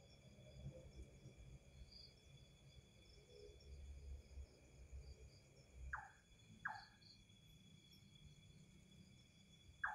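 A pair of short calls, each falling sharply in pitch, about two-thirds of a second apart, from an unseen creature taken for a mysterious bird; another call begins right at the end. Steady insect trilling runs underneath.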